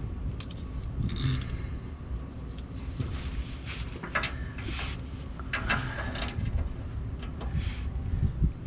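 Metal hand tools clinking and scraping in short, irregular clicks, as a 17 mm wrench or socket is readied for the oil pan drain plug, over a low steady hum.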